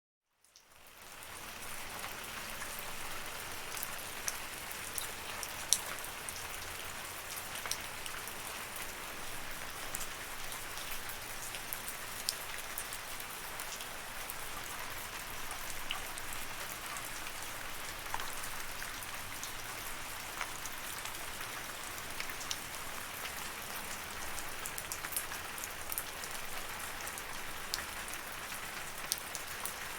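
Steady rain falling, an even hiss dotted with sharp ticks of individual drops striking a surface; it fades in from silence over the first second or so.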